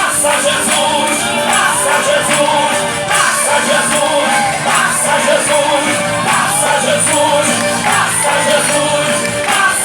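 Live gospel worship song: a singer's voice over band accompaniment, loud and continuous.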